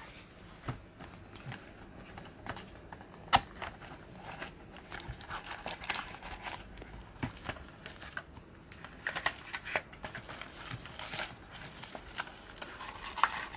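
Foil wrappers of 2019-20 Panini Status basketball card packs crinkling and rustling as the packs are pulled from the box and handled, with a sharp click about three seconds in.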